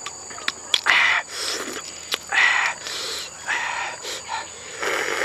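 Close-up eating sounds of roasted duck eggs being chewed with the mouth full: wet chewing and lip-smacking in irregular bursts, with a few small clicks between them. A steady high insect drone runs behind.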